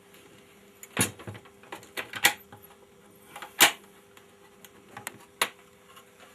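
Scattered knocks, clunks and clicks of a Victor 16 mm sound film projector being handled and shifted in its case. About seven of them, the loudest about three and a half seconds in.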